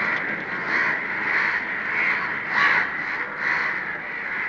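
A recording of crows cawing played back on a tape recorder: many caws overlapping in a continuous chorus.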